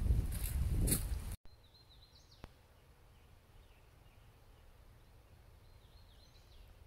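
A loud rushing noise on the microphone that cuts off abruptly just over a second in. Then quiet woodland ambience with faint, high birdsong: a short falling series of chirps soon after the cut and another near the end, and one soft click.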